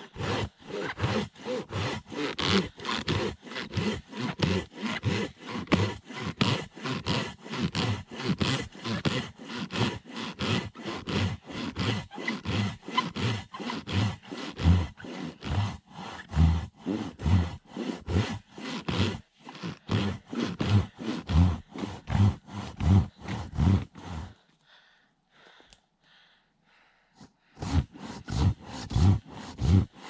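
Silky hand saw cutting through a fallen tree trunk in steady, rapid back-and-forth strokes. The sawing stops for about three seconds near the end, then starts again.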